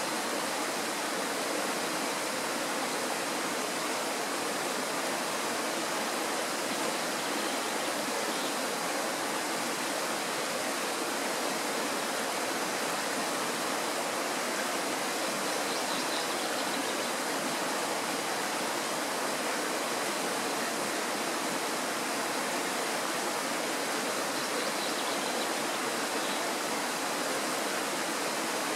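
Mountain stream rushing: a steady, even wash of running water that does not change.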